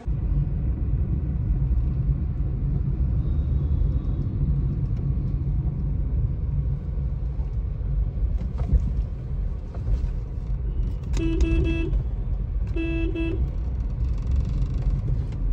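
Steady engine and road rumble heard from inside a Hyundai hatchback's cabin while driving. Near the end a vehicle horn sounds twice, two short honks about a second and a half apart.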